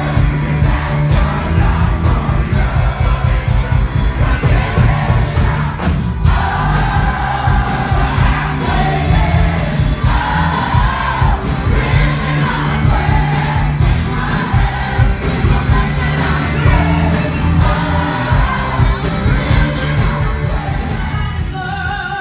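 Live rock band playing loud, with a singer's voice over the band and yells from the crowd.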